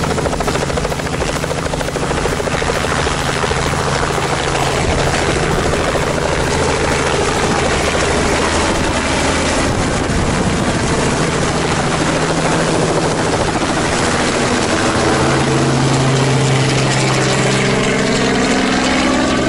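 Light two-bladed helicopter lifting off and climbing away, its rotor beating and engine running steadily and loud throughout.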